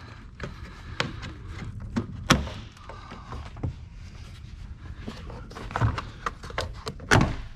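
BMW E46 plastic windshield cowl trim being pulled up, its retaining tabs and clips popping out of the body with a series of irregular sharp clicks, cracks and knocks. The loudest snaps come about two seconds in and near the end.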